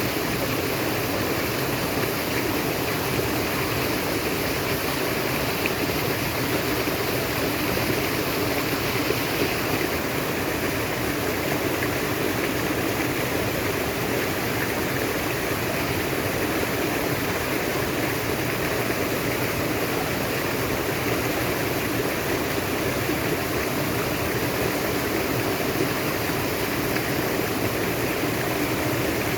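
Natural flowing water: a stream running steadily, an even rushing and babbling that does not change.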